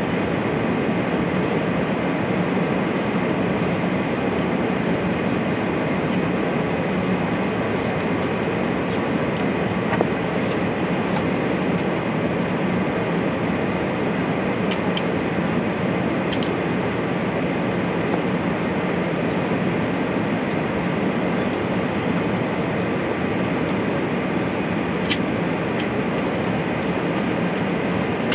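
Steady cabin noise inside an Airbus A380-800 in flight: an even drone of engines and rushing air, with a few faint clicks along the way.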